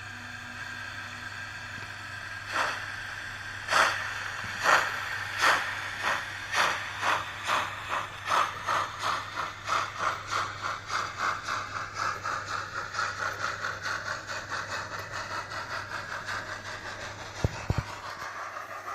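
Steam-locomotive exhaust beats played by a model DR class 95 (Prussian T 20) tank engine's sound decoder through its small loudspeaker: the locomotive starts away, the chuffs beginning slowly and quickening steadily to about four a second, over a steady whine. Two sharp knocks come near the end.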